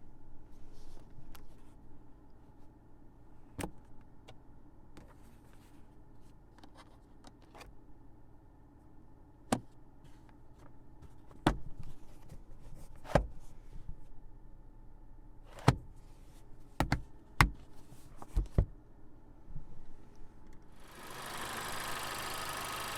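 Honda Civic Type R's 2.0-liter turbocharged four-cylinder idling with a steady low hum, with a scattering of sharp clicks and knocks over it. Near the end a steady hiss sets in.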